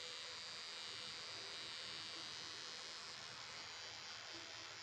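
Permanent-makeup tattoo pen running at the eyebrow, a faint, steady high-pitched buzz.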